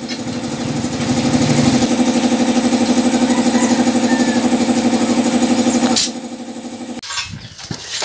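Reciprocating air compressor running with a rapid pulsing drone while a new motorcycle tyre is pumped up through an air hose. It stops abruptly about six seconds in, leaving a few light knocks.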